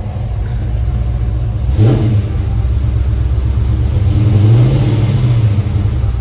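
Small-block Chevy V8 idling with its electric cooling fans running, engine speed swelling briefly about four seconds in. A short rush of noise comes about two seconds in.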